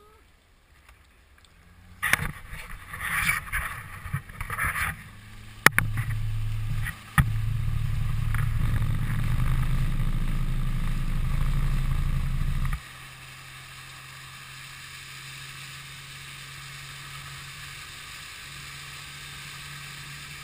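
Outboard motor of a Zodiac inflatable running with water rushing and splashing along the hull. After a few seconds of splashing, the motor runs hard with a loud steady hum, then drops suddenly to a quieter, lower hum about two-thirds of the way through as the boat slows.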